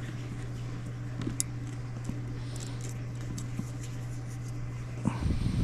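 A few faint small clicks and taps of a screw and spring being worked back into the underside of a rifle, over a steady low hum. Near the end, a short whining, voice-like sound.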